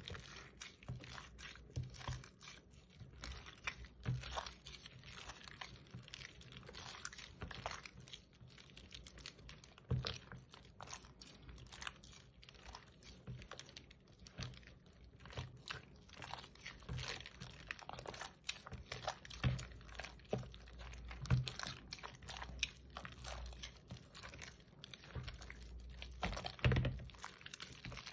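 Slime mixed with air-dry clay and fishbowl beads being squeezed and pressed by hand: a dense run of small crunching clicks and crackles, with a few louder pops now and then.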